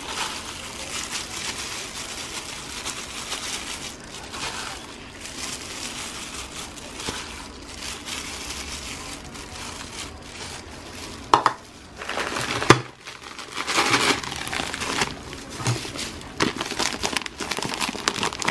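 Plastic crinkling and rustling from a plastic bag and disposable plastic gloves as dried shredded beef jerky is scattered by hand into a bowl. It grows louder about two-thirds of the way in, with a few sharp crackles as the bag is handled.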